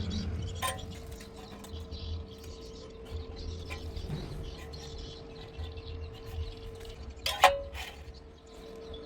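Metal workpiece being handled in a welding shop: a steady hum underneath, a few sharp light clicks, and one loud metallic clank with a short ring about seven and a half seconds in.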